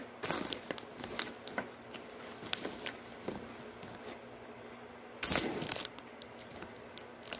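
Plastic Chex Muddy Buddies snack bag crinkling and rustling as a hand rummages inside it, with two louder bursts of crinkling, one just after the start and one about five seconds in, and small crackles between.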